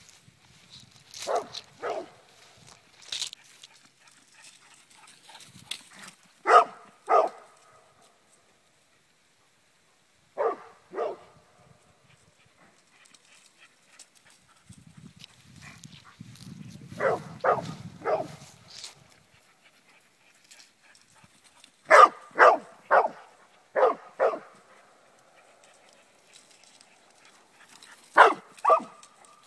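Dog barking in quick groups of two or three barks, one group every few seconds, with quiet gaps between.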